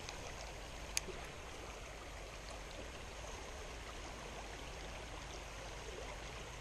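Small stream running steadily over its bed, with one short click about a second in.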